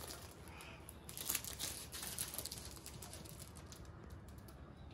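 Quiet room noise with faint scattered clicks and rustles, a little louder about a second and a half in.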